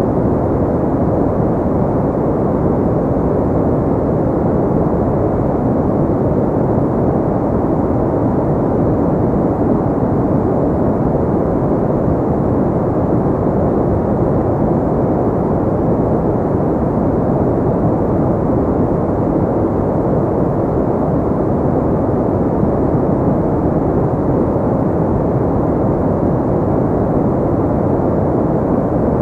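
Steady white-noise track, filtered to a deep, even rush with no high hiss.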